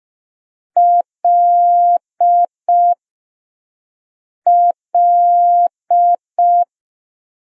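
Morse code tone keying the letter L (dit-dah-dit-dit), sent twice as a single steady electronic beep.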